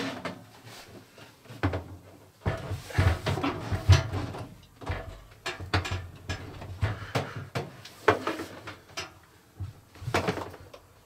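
A stainless-steel Breville toaster oven being set down on a countertop and shifted into a notched wooden strip that holds its feet: a string of irregular knocks, bumps and scrapes, heaviest about three to four seconds in.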